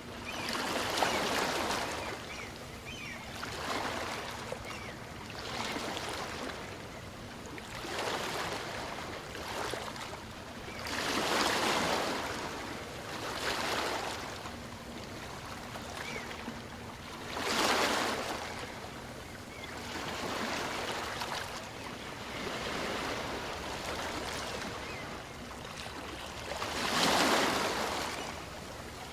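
Small waves of a calm sea breaking and washing up the shore, a rush of surf swelling and ebbing every few seconds. Four of the swells are louder than the rest.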